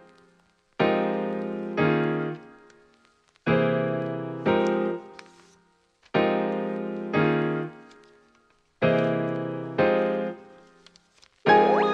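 Background music: soft keyboard chords struck in pairs, each pair repeating about every two and a half seconds and left to fade out. A fuller arrangement comes in near the end.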